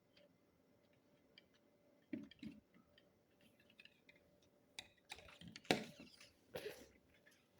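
Faint, irregular clicks and knocks of plastic LEGO parts being handled, with a denser run of clicking and rattling about five to seven seconds in.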